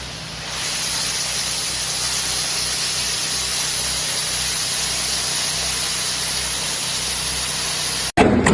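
Pressure washer jet spraying onto asphalt: a steady hiss with a faint low hum beneath. It cuts off abruptly near the end.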